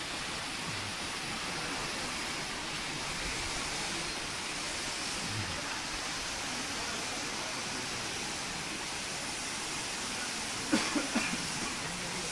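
Steady rush of river water, an even hiss with no break, with a few short sharp sounds about eleven seconds in.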